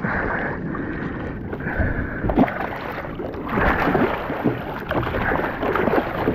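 A large Spanish mackerel thrashing on a gaff at the surface beside a kayak, splashing heavily again and again.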